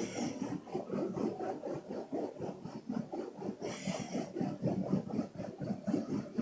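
Two men snoring with open mouths: an unbroken, rapidly fluttering rattle in the throat, with a brief hiss about four seconds in.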